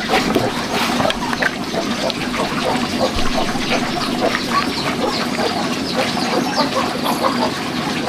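A metal spoon stirring and scraping a mix of rice and food scraps in a plastic bowl, with farm animals calling around it throughout.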